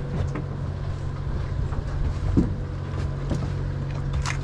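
Party boat's diesel engine running with a steady low hum, with a few light knocks and clicks over it.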